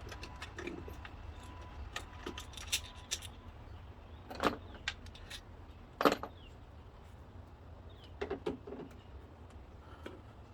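Metal hand tools and small parts clinking and clicking now and then during work on a car's throttle body, with a sharp loudest clink about six seconds in.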